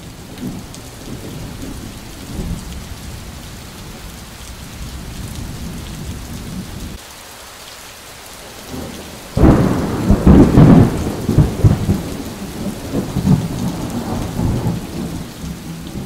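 Thunder rumbling over rain. A loud peal breaks in about nine and a half seconds in and rolls on for several seconds before fading back.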